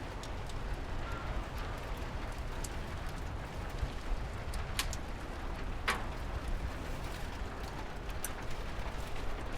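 Steady rain with scattered drops ticking, over a low rumble. A few drops ring out sharper than the rest, the clearest about five and six seconds in.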